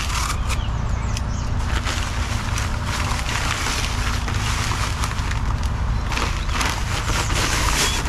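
Dry crack-resistant concrete mix pouring and sliding out of a bag into a wooden form: a gritty, granular hiss that comes in irregular surges. A steady low rumble runs underneath.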